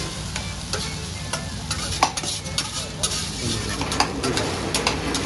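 Egg and vegetables sizzling steadily on a hibachi teppanyaki griddle, with irregular sharp clacks and scrapes of the chef's metal spatula and knife on the steel plate.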